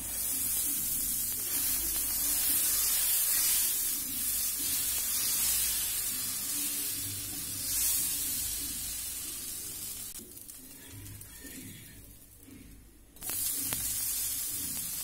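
Dosa batter sizzling on a hot flat tawa as it is poured and spread in circles. The hissing starts sharply, dies down about ten seconds in, then returns suddenly near the end once the dosa has been turned over to roast the other side.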